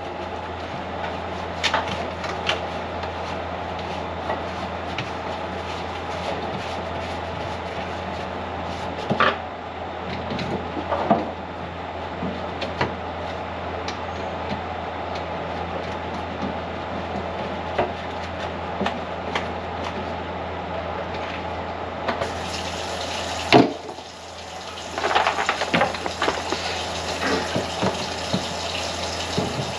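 Water running and splashing in a kitchen sink over a steady low hum, with scattered knocks and clatters and one loud knock a little past three-quarters of the way through, after which the splashing gets brighter.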